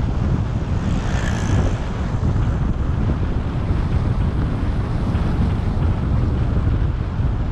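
Wind buffeting the microphone of a camera travelling along the road: a steady low rumble, with a brief higher hiss about a second in.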